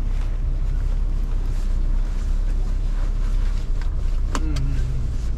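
Steady low rumble of a moving van's engine and tyres on the road, heard from inside the cabin, with a couple of brief clicks about four seconds in.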